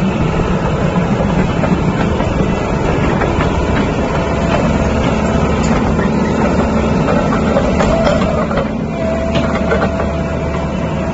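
Sumitomo SH120 crawler excavator's diesel engine running steadily, heard close up at the rear of the machine. A thin whine comes and goes in the second half.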